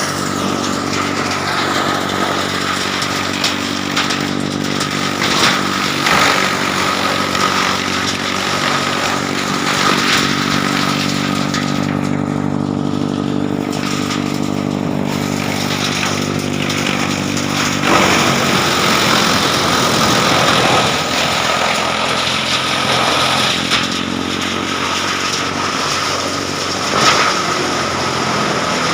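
Heavy-duty double-rotor wood chipper machine running steadily, its engine humming with occasional brief, sharper noises. The engine note shifts about two-thirds of the way through.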